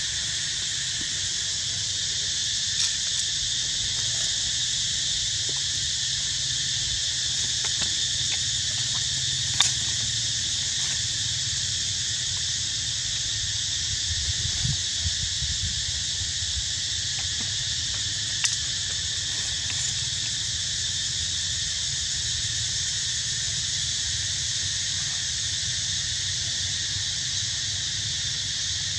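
Steady, even drone of an insect chorus, with a few brief sharp clicks, the loudest about ten seconds in.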